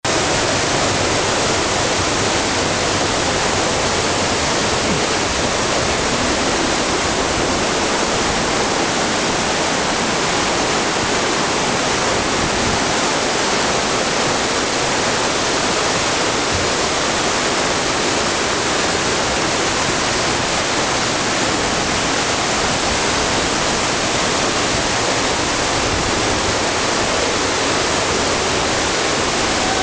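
Mountain stream cascading over boulders in a narrow rock gorge: a steady, unbroken rush of water.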